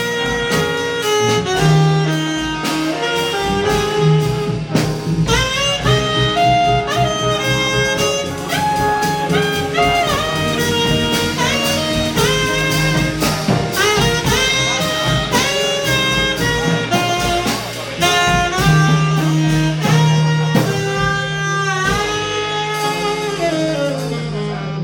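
Live jazz quartet playing: a saxophone carries the melody over piano, double bass and drum kit.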